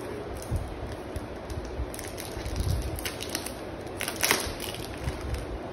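Plastic shrink-wrap being peeled and crinkled off a phone box, crackling in short irregular bursts, loudest about four seconds in, with soft handling knocks.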